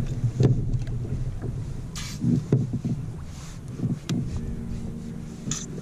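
Scattered knocks and rustles of fishing gear being handled on a plastic kayak, with a few brief splashy bursts. A steady low hum comes in about four seconds in.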